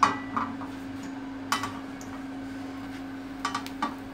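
Metal seekh kabab skewers being set down on an iron tawa: a few short metal-on-metal clinks, with a small cluster of them near the end, over a steady low hum.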